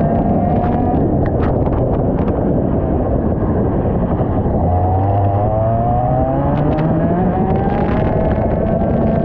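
IAME X30 125cc two-stroke kart engine at racing speed, its pitch climbing, falling away about four and a half seconds in, then climbing again as it accelerates. A loud rushing noise runs under it.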